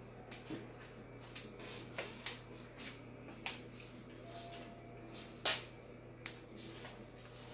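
Scattered light clicks and knocks, about a dozen at irregular intervals, over a steady low hum, with a short faint tone near the middle.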